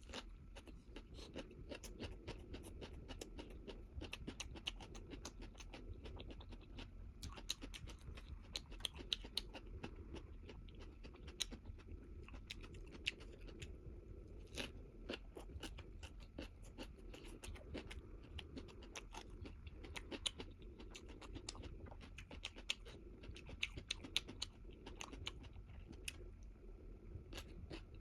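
A person chewing a mouthful of spicy instant ramen noodles, a steady run of small wet clicks and crunches with a few louder clicks.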